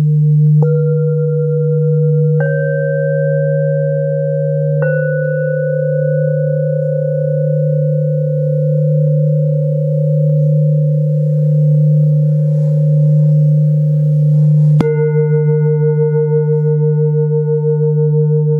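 Large hand-hammered Tibetan singing bowls ringing: a deep steady hum carries throughout while a mallet strikes three times in the first five seconds, each strike adding a new, higher ringing tone that slowly fades. Near the end the sound changes suddenly to a different chord of bowl tones with a slow pulsing beat.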